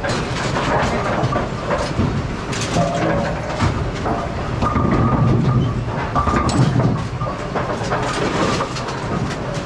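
Brunswick bowling pinsetter machinery running, a dense mechanical clatter of metal rattles and knocks, with a few short squeal-like tones.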